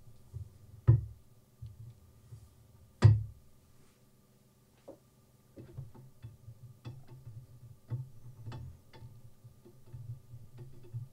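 Metal knocks and clicks from a Kosim Pro clamp-style knife sharpener being handled. Two sharp knocks come in the first three seconds as the knife is set into the jaw clamp. A run of small, irregular clicks follows from about halfway on, while the angle-adjustment knob is worked.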